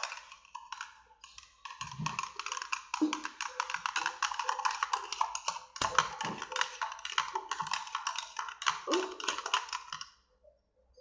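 Close-up eating sounds of ramen being chewed and slurped: a dense run of rapid clicks and smacks that starts and stops a few times in the first two seconds, then runs on without a break until it stops about ten seconds in.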